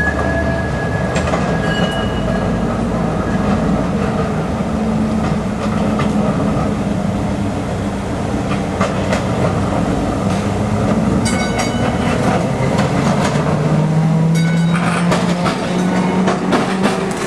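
An electric streetcar approaching and passing close by: a steady rumble of wheels on rail, with a motor hum that rises as it nears. About nine seconds in, quick clicks of the wheels over the rail joints and switches begin and continue to the end.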